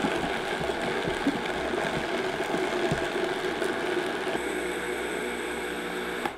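Vitamix blender running steadily on low speed, grinding toasted hazelnuts into a coarse meal. It cuts off near the end.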